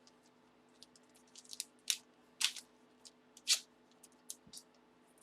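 Plastic packaging crinkling and rustling as a graded card slab is handled, in short scattered scrapes with three louder ones around the middle.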